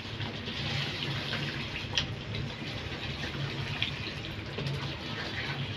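Beef bhuna masala frying in oil in a kadai: a steady sizzle, with a few light scrapes and clicks of a plastic spatula stirring the meat.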